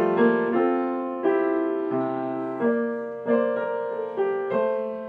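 Background piano music: slow chords and notes struck about twice a second, each fading before the next.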